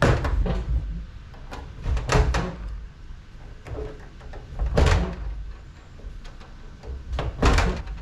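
Loud metal knocks and clanks as brass fittings are worked off scrap air-conditioner parts: about four heavy strikes a couple of seconds apart, each ringing briefly.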